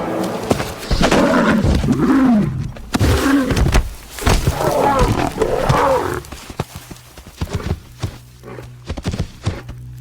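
Lioness snarling and growling in a string of rough calls during an attack, loud for about six seconds, then dying away into scattered dull thuds.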